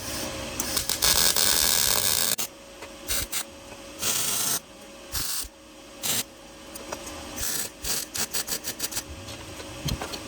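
Arc welding on the exhaust pipe, going in short stop-start bursts of crackling hiss: one longer bead about a second in, then several brief tacks and a quick run of short zaps near the end.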